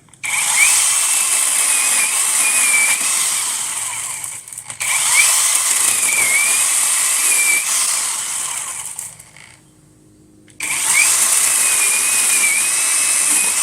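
Battery-powered chainsaw running in three long bursts while cutting wood, its high motor whine wavering under load. It stops briefly about four and a half seconds in and again for about a second near the ten-second mark.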